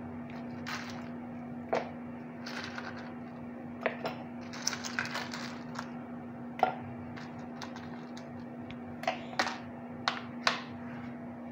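Ice cubes dropped by hand into a glass blender jar of peach milkshake: about ten scattered sharp clinks and knocks over a steady low hum.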